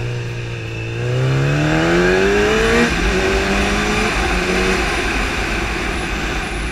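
Sport motorcycle engine accelerating hard: its pitch climbs steadily, drops sharply at an upshift about three seconds in, then pulls on in the higher gear, over a steady rush of wind noise.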